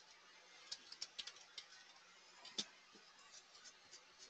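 Faint, scattered keystrokes on a computer keyboard, a few light clicks with one sharper click about two and a half seconds in, over near silence.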